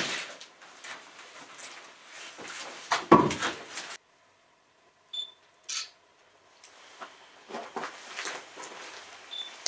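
Footsteps and scuffs on a debris-strewn floor inside an abandoned brick building, with two heavier thumps, one at the start and one about three seconds in. About four seconds in the sound drops out almost completely for a second, with a couple of faint clicks, before irregular steps resume.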